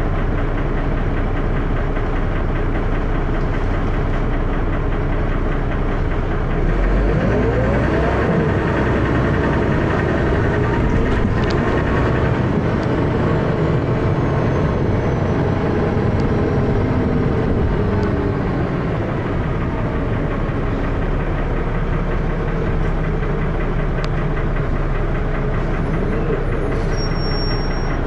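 Dennis Arrow bus's diesel engine running with a loud knocking and a lot of thrash. The engine note rises about a quarter of the way in and eases off about two-thirds of the way through.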